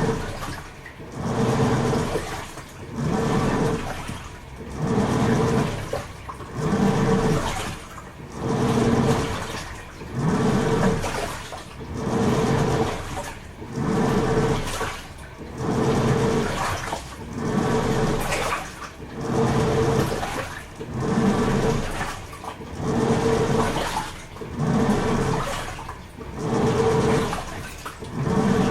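Toshiba AW-42SEE4 top-loading washing machine agitating a load in water. The motor hums and the water swishes in a regular surge about every two seconds as the pulsator turns one way, then the other.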